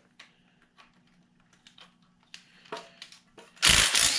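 DeWalt cordless driver running in one short, loud burst near the end, backing out an exhaust manifold bolt on a Jeep 4.0-litre inline-six. A few faint clicks come before it.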